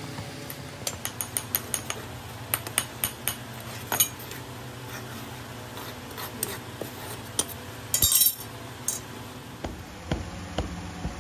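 Irregular sharp metallic clinks and taps of a steel strike-off bar against the rim of a steel moulding flask as sand is packed and scraped level, with a brief louder clatter about eight seconds in, over a low hum.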